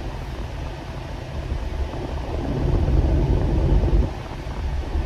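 Low rumble of a car being driven, road and engine noise heard from inside the car, swelling from about two and a half seconds in.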